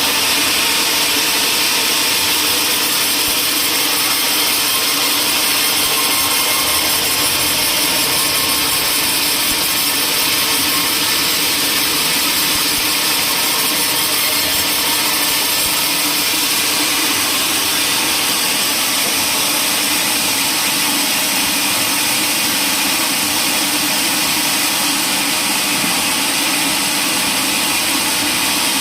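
Power woodworking machine cutting wood, a loud, steady machine noise that does not let up.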